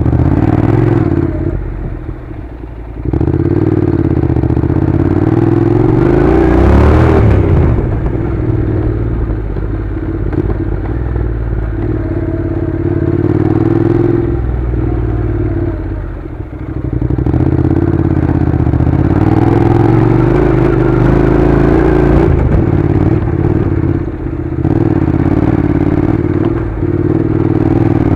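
Honda NC700's 670 cc parallel-twin engine running as the motorcycle is ridden along a dirt track. The throttle eases off briefly about two seconds in and again a little past halfway, then picks back up.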